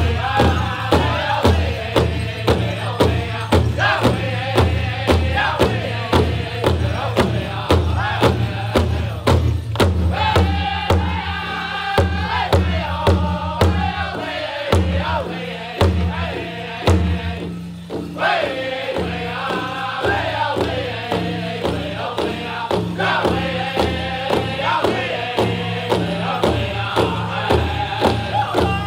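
Powwow drum group: several men strike one large hide-covered drum with padded beaters in a steady unison beat, about two strokes a second, while singing together in high, chanting voices.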